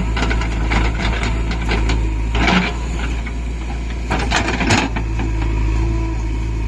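Heavy diesel machinery running steadily, with rattling and scraping clatter from about half a second to two and a half seconds in and again around four seconds in.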